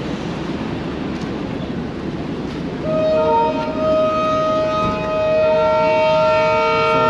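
Railway locomotive horn sounding a long, steady multi-note chord, coming in about three seconds in over the noise of a train pulling away, the horn sounded as the train departs.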